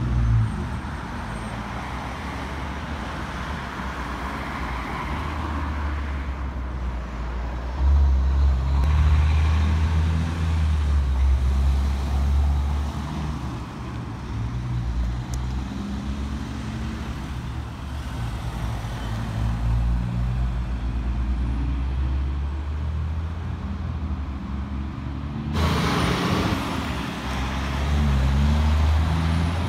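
Diesel engines of heavy prime movers hauling multi-trailer combinations at low speed through a roundabout, a steady low engine note that grows louder about eight seconds in. Near the end there is a short, sudden burst of air hiss, typical of a truck's air brakes.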